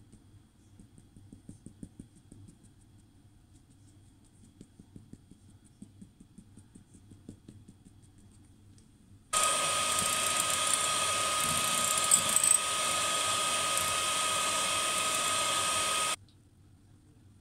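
Electric hand mixer running steadily at one speed with a steady whine. It starts abruptly about nine seconds in and cuts off about seven seconds later.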